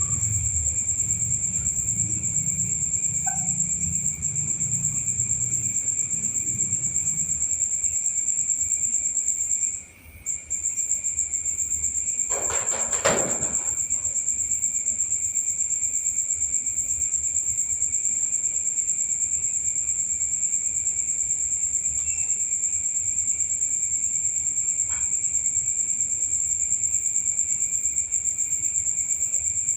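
Crickets trilling in a continuous, steady high-pitched chorus that cuts out briefly about ten seconds in. A low rumble sits under it for the first several seconds, and a short noisy burst comes about thirteen seconds in.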